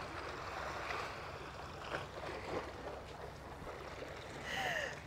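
Small sea waves washing against a seawall: a steady wash of water noise, with a brief high-pitched sound near the end.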